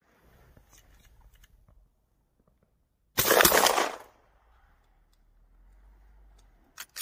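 A single 12-gauge shotgun shot about three seconds in, its blast dying away in under a second.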